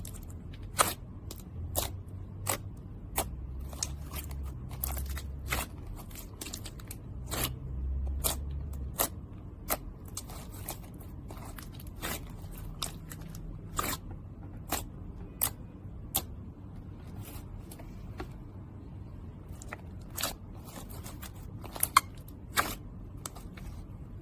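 Slime being pressed and pulled by hand, making irregular sharp clicks and pops, about one or two a second.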